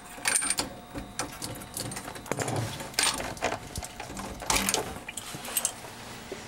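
Brass compression nuts on a copper water supply line being unscrewed by hand: small irregular metallic clicks, taps and scrapes as the nut and fittings knock together.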